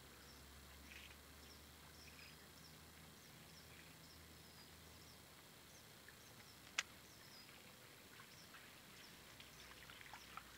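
Near silence with faint, repeated high bird chirps and one sharp click about seven seconds in.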